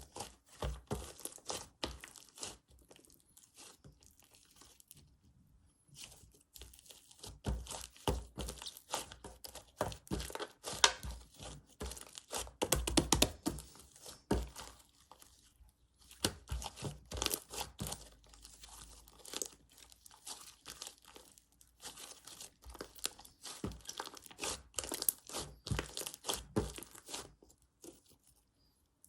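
Slime being kneaded and folded into pockets of air, then popped by hand: rapid crackling, crinkly pops and crunchy clicks in bursts, with short pauses between handfuls.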